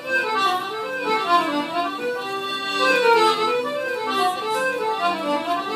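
Piano accordion playing a samba tune solo, quick runs of notes rising and falling over held bass.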